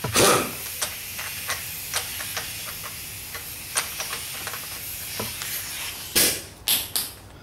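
Pneumatic impact wrench working on the nuts of a VW transaxle case: a short burst of air hiss at the start, a run of light metal clicks as the nuts and washers are handled, then three quick bursts of the gun near the end.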